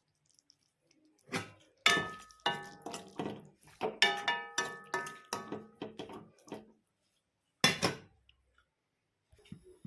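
A metal spoon clanking against a metal cooking pot: a quick run of ringing clinks for about five seconds, then one more clank near the end.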